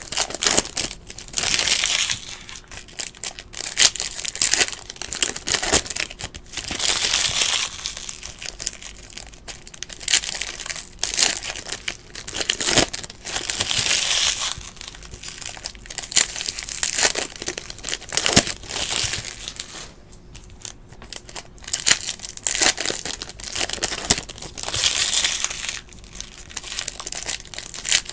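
Foil wrappers of 2017 Bowman Chrome baseball card packs crinkling and being torn open by hand, in bursts every couple of seconds with sharp clicks between.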